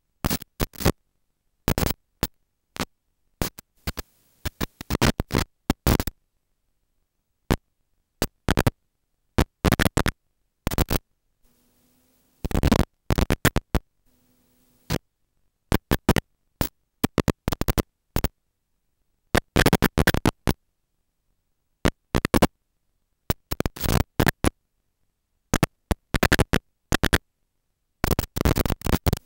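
Crackling static bursts from a 5.8 GHz analog wireless video receiver's audio channel, cutting in and out irregularly in clusters of sharp clicks with dead silence between them.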